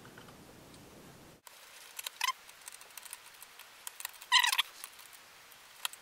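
Small screwdriver driving screws into a MacBook Pro's optical-bay drive caddy: a few short, high metallic squeaks and scrapes, the loudest a little past the middle.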